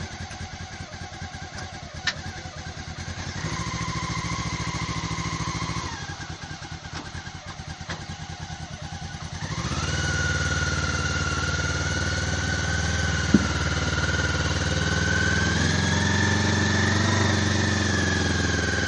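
Homemade all-terrain vehicle's engine idling, revving briefly, then from about halfway running at steady high revs with a whine over it. A single sharp knock about two-thirds of the way through.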